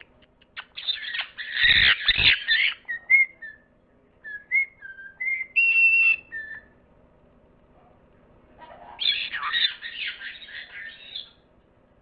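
Parrot calls: harsh, raspy squawks about a second in and again near the end, with a run of short whistled notes between them.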